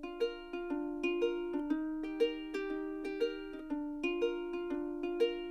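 Background music: a light, upbeat tune of plucked string notes, each ringing out and fading, in a short phrase that repeats about every two seconds.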